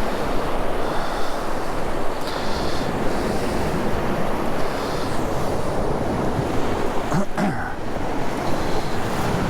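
North Sea surf breaking and washing steadily onto a sandy beach, with wind buffeting the microphone.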